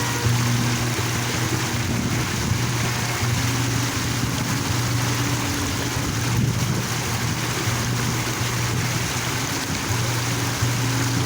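Park water fountain splashing: a steady rush of falling water.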